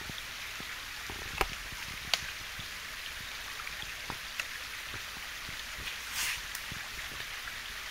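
Steady rush of a small forest stream running over rocks, with a few sharp clicks and a brief hiss about six seconds in.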